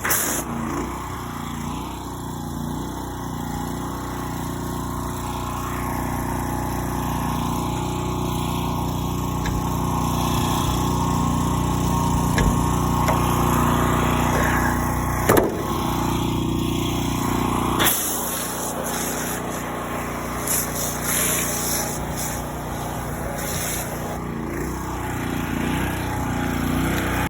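Large farm machine's engine running steadily, with a short knock about halfway through.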